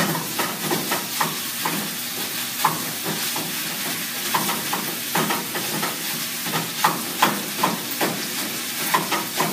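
Food sizzling in a frying pan while a Pampered Chef Mix 'N Chop is pushed down and twisted through it to break it into small pieces, giving a steady hiss with irregular knocks and scrapes of the tool against the pan.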